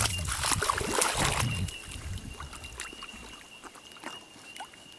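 Staffordshire bull terrier swimming in a pond, paddling and splashing through the water, loudest in the first second and a half and then settling to quieter lapping.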